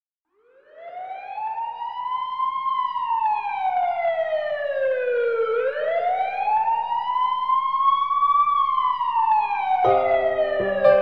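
An emergency vehicle siren wailing, fading in about half a second in and slowly rising and falling in pitch twice. Music with held notes comes in near the end.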